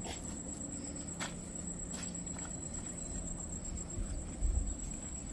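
Steady high-pitched trill of an insect, with a few faint clicks and a brief low rumble about four and a half seconds in.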